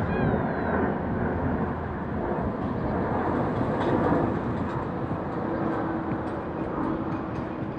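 Steady outdoor city background noise: a constant low rumble and hiss of the kind distant traffic makes, with no clear single event.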